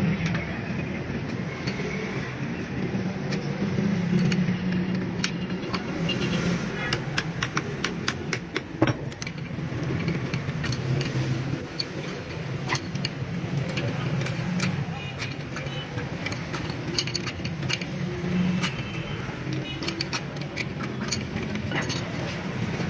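Metal tools and parts clinking and tapping: many sharp irregular clicks, busiest from about six seconds in, over a steady low engine-like hum.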